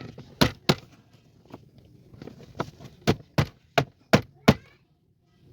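Seven sharp knocks on the car's plastic interior trim as it is fitted back into place. Two come close together about half a second in, then five in quick succession past the middle.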